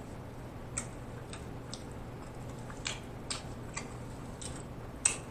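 Mouth sounds of chewing: soft, irregular clicks and lip smacks, about eight of them, spaced unevenly over a faint steady room hum.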